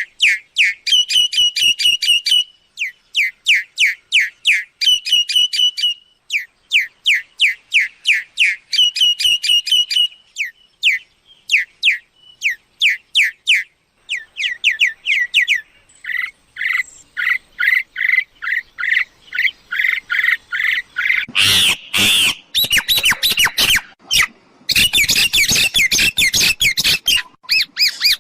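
Myna calling: quick runs of short, falling whistled notes in bursts, then harsh squawks from about two-thirds of the way through.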